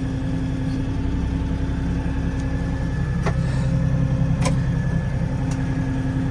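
LS XR4140 tractor's diesel engine running and working harder for a few seconds as the front loader tries to lift a round bale on clamp-on pallet forks. Three sharp clicks come in the second half.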